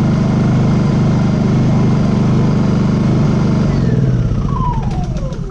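Honda EU2000i inverter generator's single-cylinder four-stroke engine running steadily at idle, idling properly again after its idle jet was reseated. About three and a half seconds in it is switched off, and it winds down with a falling whine.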